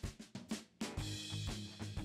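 Background music: a few separate drum hits, then a steady band beat with a bass line comes in a little under a second in.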